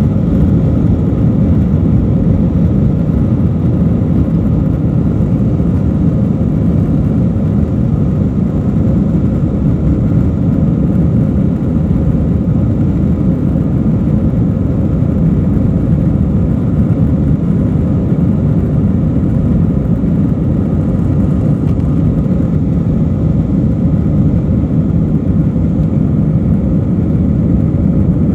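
Airbus A321 jet engines running steadily while the airliner taxis on the ground, heard from inside the passenger cabin as an even low rumble.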